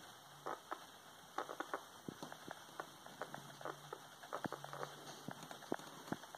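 Pet rat sniffing and nibbling at a person's hand close to the microphone: a string of soft, irregular clicks and ticks.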